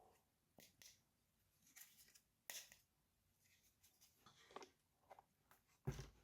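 Faint handling sounds of toys and packaging: scattered light clicks and rustles, with a sharper knock near the end.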